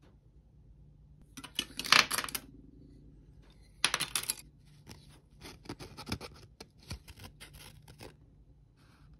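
Hands handling small workshop items on a wooden bench: wooden craft sticks clicking together and a sanding disc rustling. It comes as short bursts of clicks and scrapes, loudest about two seconds in, with another burst about four seconds in and lighter scattered clicks after.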